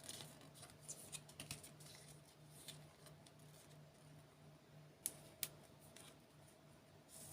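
Faint clicks and light taps of an album's cardboard packaging and contents being handled and unpacked, with two sharper taps about five seconds in.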